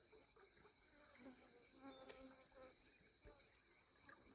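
Crickets chirping steadily in the background, a high trill that pulses about twice a second.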